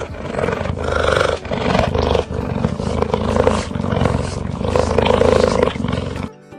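Big cat roaring, a run of rough, repeated roars that ends abruptly about six seconds in.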